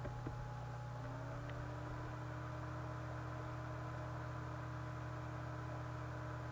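Steady low electrical hum and hiss from the recording setup, with faint steady whining tones that shift slightly in pitch about a second in. Two faint clicks near the start.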